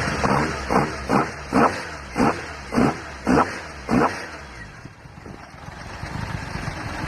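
Toyota 4A-GE twin-cam four-cylinder on individual throttle bodies, still cold from a cold start, revved in about eight quick throttle blips, roughly two a second, then dropping back to a steady idle about five seconds in.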